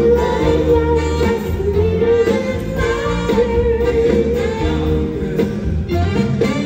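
Live band music with bass and drums under a high, held male lead vocal sung into a handheld microphone.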